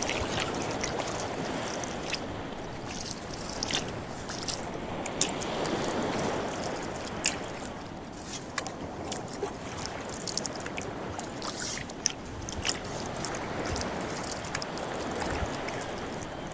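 Oars rowing a small boat, dipping and pulling through the water with splashing and gurgling that swells and eases every few seconds. Scattered sharp clicks are heard throughout.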